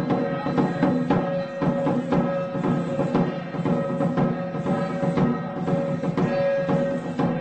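Traditional temple ceremonial music: drums and wood-block-like percussion beating repeatedly over held melodic tones.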